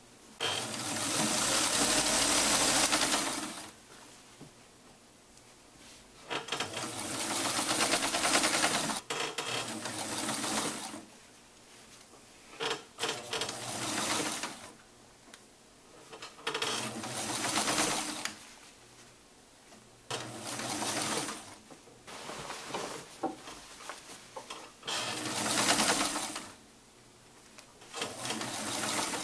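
Vintage Morse sewing machine stitching a cuff onto a shirt sleeve with a straight stitch, running in about seven short spurts of one to four seconds with brief pauses between them as the fabric is guided.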